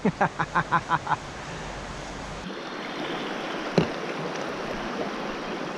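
A river rushing steadily over rocks. About seven quick short pulses open the first second, and a single sharp click sounds about two thirds of the way through.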